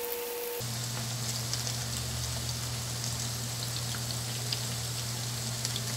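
Bacem tempe and tofu pieces sizzling in hot oil in a non-stick frying pan, a steady crackling hiss with many small pops. It starts suddenly about half a second in, over a low steady hum.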